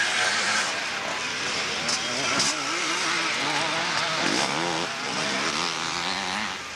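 Several motocross bikes racing on a dirt track, their engines revving up and down in pitch as the riders work the throttle.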